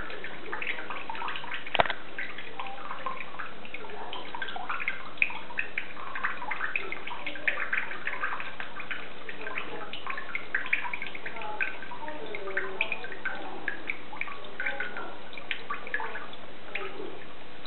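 A thin stream of tap water running onto a hand and into a sink basin, a steady hiss broken by many small splashes and drips as a lovebird bathes in the stream. A single sharp click about two seconds in.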